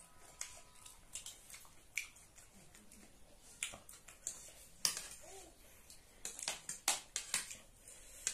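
Eating sounds from two people having spicy noodles and boiled eggs: an irregular string of sharp wet mouth smacks and clicks from chewing, mixed with forks tapping and scraping on ceramic plates, busier in the second half.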